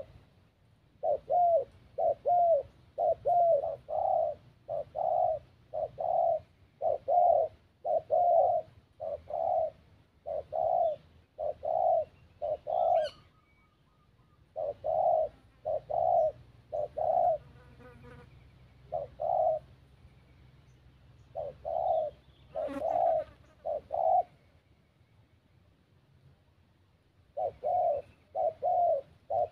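Spotted doves cooing: runs of short, low coos, about two a second, broken by pauses of a second or two. A few faint higher chirps come in between.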